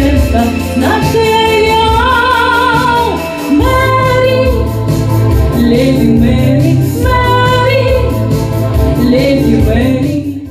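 A woman singing a song into a microphone over backing music, holding long notes with vibrato.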